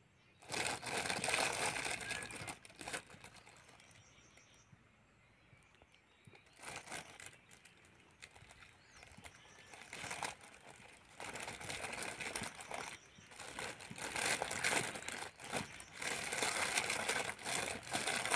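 Clear plastic packaging bag crinkling and rustling in irregular bursts as a toy bus is worked out of it. The crinkling is sparse in the middle and near-continuous in the second half.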